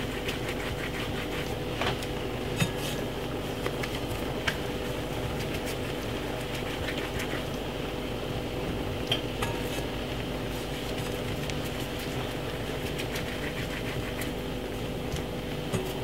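Kitchen sounds: a steady low hum with a few light clicks and knocks of kitchenware as dumplings are shaped over a glass bowl and added to a steel soup pot.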